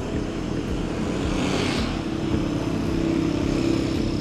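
Street traffic with a motorcycle engine running; its hum grows stronger through the second half, with a brief hiss about a second and a half in.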